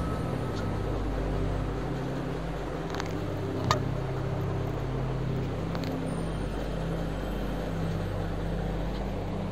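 A steady low hum, with one sharp click a little under four seconds in and a couple of faint ticks around it.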